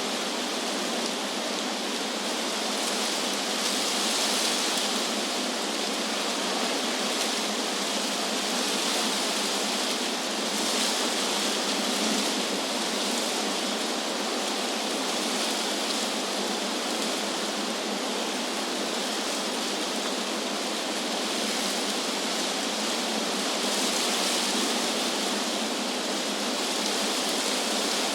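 Wind rustling through tree leaves: a steady, airy hiss that swells gently every few seconds.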